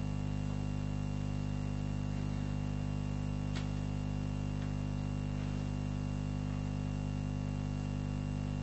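Steady electrical mains hum with a stack of overtones in the recording or sound system, with a few faint soft ticks near the middle.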